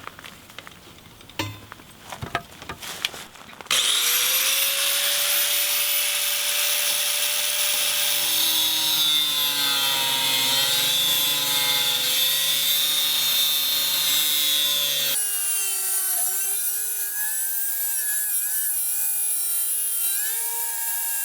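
A few handling clicks and knocks, then an angle grinder starts about four seconds in and cuts through half-inch steel pipe, a loud steady whine whose pitch rises as it spins up and wavers and sags while the disc is in the cut. The tone changes abruptly about 15 seconds in.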